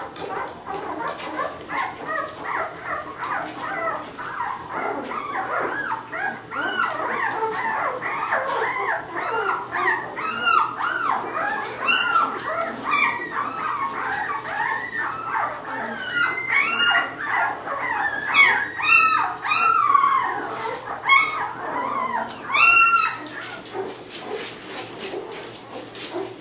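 A litter of nine-day-old Labrador retriever puppies squealing and whimpering, many short high cries overlapping one another. The cries thin out near the end.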